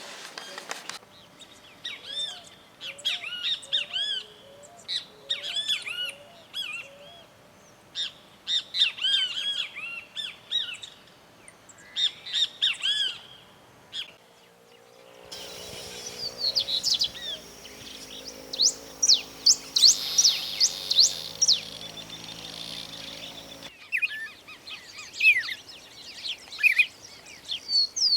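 Songbirds chirping and singing in repeated short phrases, in several joined recordings that change abruptly about one, fifteen and twenty-four seconds in. In the middle stretch, rapid rising whistles sound over a low steady hum.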